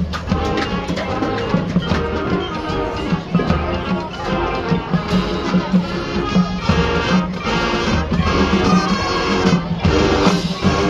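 High school marching band playing its field show: brass winds carrying the tune over drums and percussion, loud and continuous.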